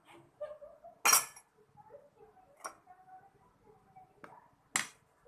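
Kitchen utensils and dishes clinking and knocking together: four sharp strikes, the loudest about a second in.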